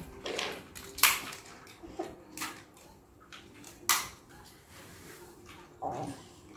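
Scattered small plastic clicks and knocks from Beyblade spinning-top parts being handled and snapped together, the two sharpest about a second in and about four seconds in.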